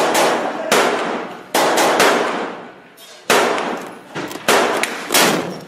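Gunshots fired one at a time at an uneven pace, about seven in under six seconds, each with a long echoing tail.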